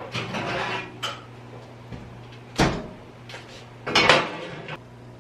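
Household things being handled: a rustling shuffle, then a sharp knock and a quick cluster of knocks and clatters, like a cupboard door and dishes, over a steady low hum.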